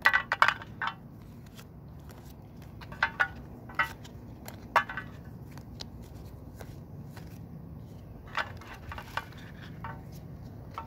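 Pokémon trading cards and booster-pack wrappers being handled: scattered short crinkles and flicks in a few clusters, over a faint steady background.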